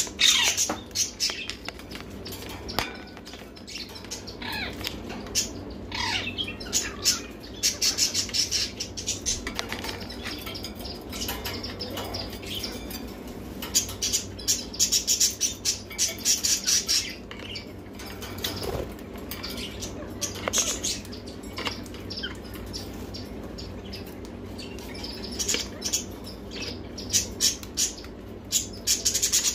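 Ringneck parakeet pecking and scraping at the phone with its beak right against the microphone: a run of close, uneven clicks, taps and rustles, with a few short bird chirps.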